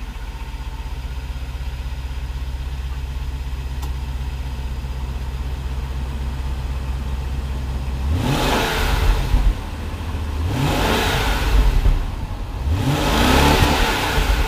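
Jaguar XK8 V8 heard at the tailpipes through its standard factory exhaust, a restrictive system that keeps it quiet. It idles steadily, then from about eight seconds in the engine is revved three times, each rev rising and falling.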